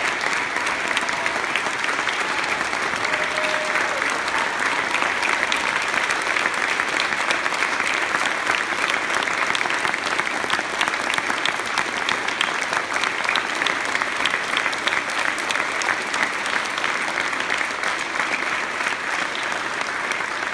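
A large church congregation applauding: dense, steady clapping from a big crowd that keeps going without a break.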